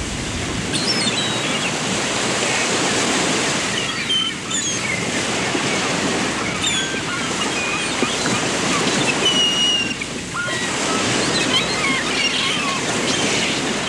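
Small birds chirping and whistling in short, scattered calls over a steady rushing background noise.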